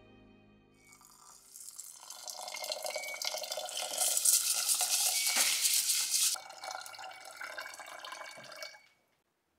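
Tap water running into a metal pot of rice in a stainless steel sink while hands swish and rub the grains to wash them. It is loudest for a couple of seconds in the middle and stops shortly before the end.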